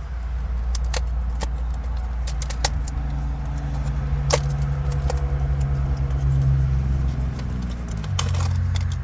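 A steady low engine-like hum whose pitch shifts about eight seconds in, under scattered light clicks and rattles of plastic wiring-harness connectors being handled.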